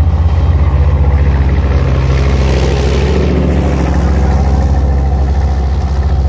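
Leopard 1 tank's diesel engine running steadily under load as it drives off-road through mud. A hiss and clatter of tracks and mud swells and fades between about two and three and a half seconds in as the tank passes close.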